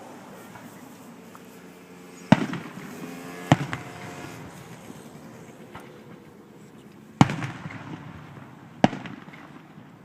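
Fireworks bursting: four sharp bangs, two close together about two seconds in and two more later on, each followed by a rumbling echo.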